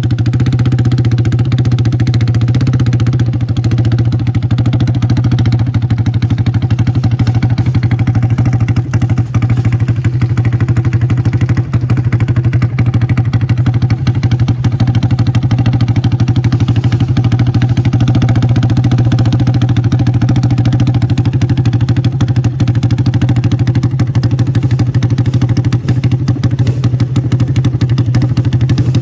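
Yamaha Raptor drag quad's engine idling steadily.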